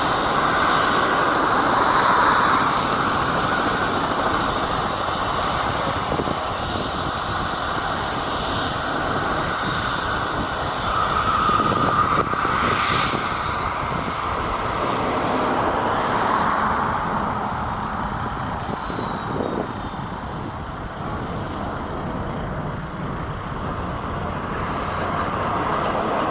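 Robinson R44 helicopter's rotor and piston engine running steadily as it comes in to land, the sound slowly swelling and easing.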